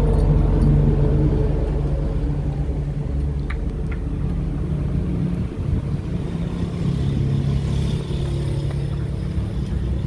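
A steady low engine rumble with a constant low hum, and two faint light clicks about three and a half and four seconds in.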